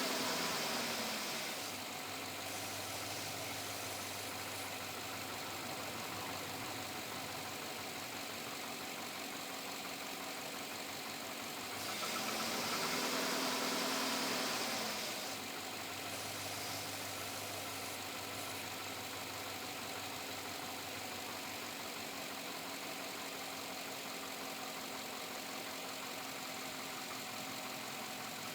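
2007 Chevrolet Avalanche V8 idling steadily, briefly revved twice: once easing back down at the very start and again about 12 seconds in for some three seconds. The engine has a persistent knock that the owner suspects may be piston slap.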